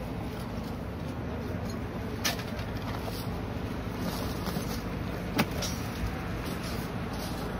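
A steady low engine rumble, with two sharp knocks: one about two seconds in and a louder one about five seconds in.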